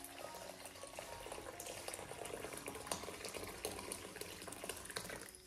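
Water from a kitchen tap pouring steadily into a wooden bowl and filling it, splashing and bubbling in the rising water.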